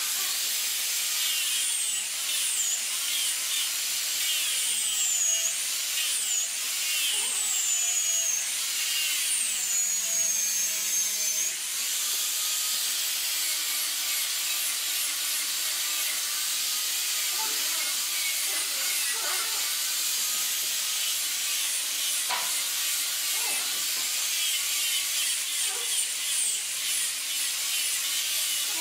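Electric angle grinder with a sanding disc grinding and sanding a curved wooden stair volute. The motor's high whine dips in pitch several times in the first half as the disc is pressed into the wood, then runs steadily.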